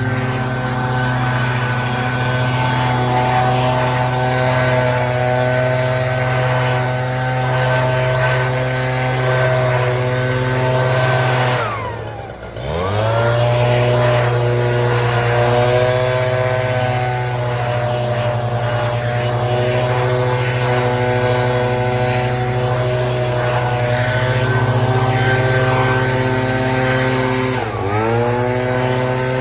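Echo PB-8010 backpack leaf blower's two-stroke engine running at high throttle, blowing off a wet driveway. About twelve seconds in the throttle is let off, the engine note dropping toward idle and climbing back up, and it dips briefly again near the end.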